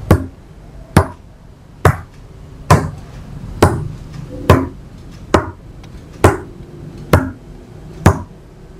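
Hand tapping on playing cards laid on a wooden table: ten sharp taps, evenly spaced at a little under one a second, each tap a counting cue for a card trick.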